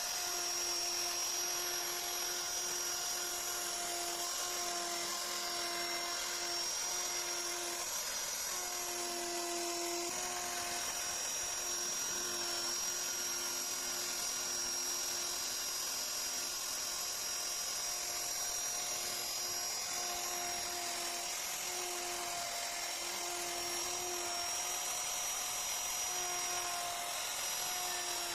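Hand-held electric power tool for wood carving, a router or angle grinder, running at high speed with a steady high whine that wavers briefly every second or two.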